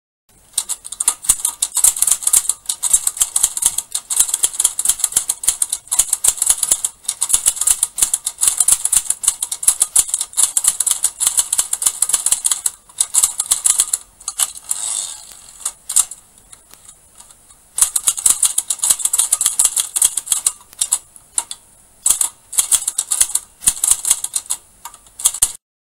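Typewriter sound effect: rapid clacking of keys in runs, broken by short pauses and one longer gap of a few seconds just past the middle, accompanying title text being typed onto the screen.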